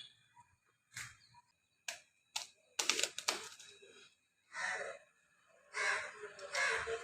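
A string of sharp knocks: single strikes about one and two seconds in, a quick cluster of several around three seconds, then two longer rough, rustling bursts.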